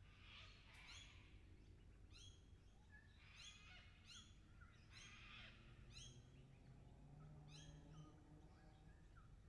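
A flock of lorikeets calling: short, faint notes that each fall in pitch, repeated about once a second, with harsh screeches breaking in near the start, at about three and a half seconds and at about five seconds.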